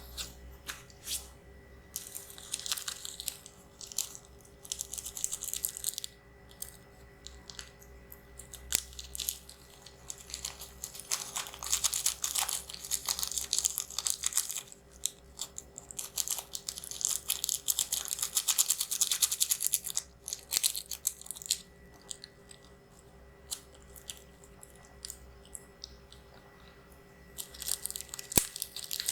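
Close-miked mouth sounds of someone eating spicy instant noodles: chewing and crunching in bursts of dense crackly clicks, several seconds each, with short pauses between.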